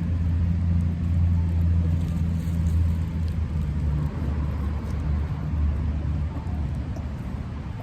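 Low, steady rumble of a nearby motor vehicle's engine, fading in the second half.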